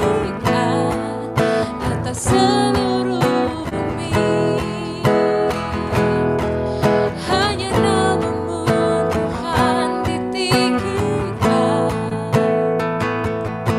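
Worship band music led by a strummed acoustic guitar, playing on steadily.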